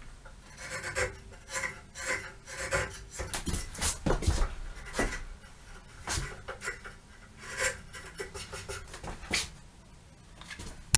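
Hand chisel paring a pine board, a run of short, uneven scraping strokes as shavings lift off, with a few sharper knocks among them.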